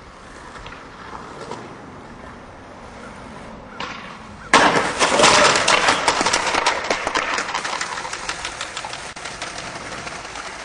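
Skateboard wheels rolling on pavement, then a sudden loud crash about four and a half seconds in as the rider hits a pole's guy wires and falls. A dense crackling clatter follows and slowly dies down.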